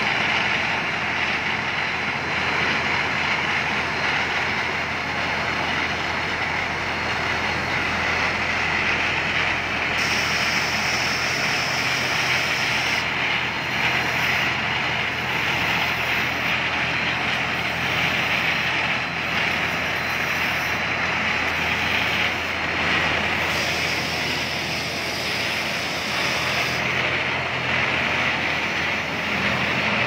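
Kubota rice combine harvester's diesel engine running steadily as the machine drives and turns on its rubber tracks, a continuous loud mechanical drone.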